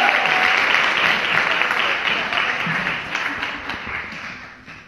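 Audience applause, many hands clapping, loud at first and dying away over about four seconds.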